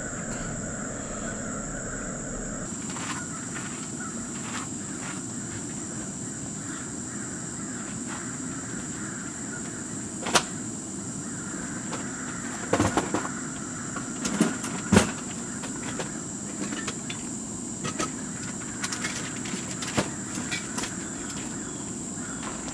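Single-burner propane camp stove on a 1 lb cylinder running steadily under a frying pan of stew, with scattered sharp pops and ticks from the food heating in the pan. A steady high-pitched insect drone sounds throughout.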